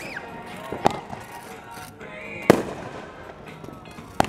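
Aerial fireworks bursting in the sky: three sharp bangs roughly a second and a half to two seconds apart, the loudest about halfway through and the last near the end.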